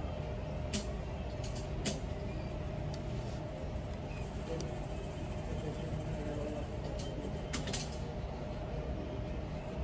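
A steady low mechanical hum with a faint constant tone above it, broken by a few light clicks: about a second in, near two seconds, and again later.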